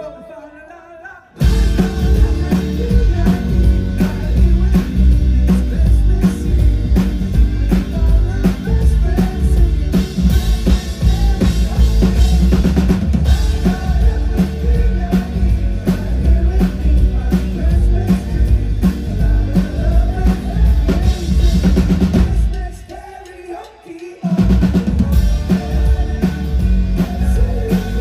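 Band music with a drum kit and singing, played loud. The music breaks off briefly right at the start and again for about a second and a half a little before the end, then comes back in.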